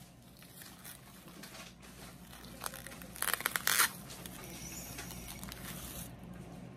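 Plastic cling wrap crinkling and tearing as it is peeled off a foam food tray, with a loud cluster of sharp crackles about three to four seconds in.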